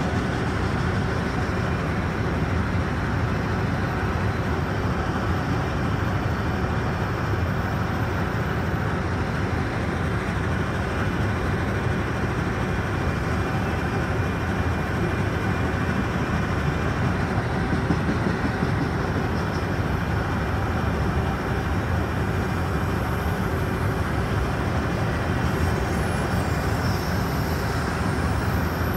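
Freight train of enclosed autorack cars rolling past, a steady noise of steel wheels running on the rails.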